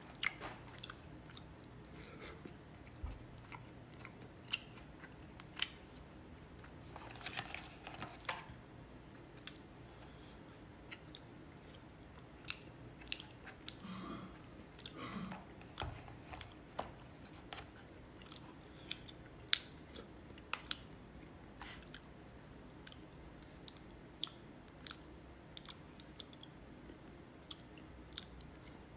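A person chewing and biting food, quiet and close, with frequent short clicks of wooden chopsticks against a plastic bowl.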